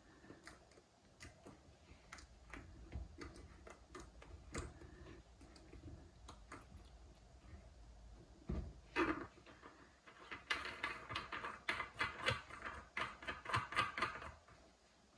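Back nut being spun on by hand onto a basin waste's thread under a ceramic basin, giving scattered clicks and then a quick run of clicks near the end as it is tightened.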